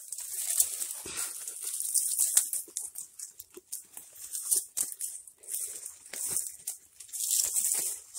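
Footsteps crunching through dry leaf litter and brushing against twigs and branches, an uneven run of crackles and rustles that swells and fades.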